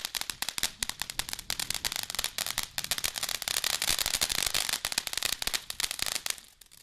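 A ground fountain firework burning on the pavement, throwing off a rapid, dense crackle of popping sparks over a fizzing hiss. It dies down just before the end.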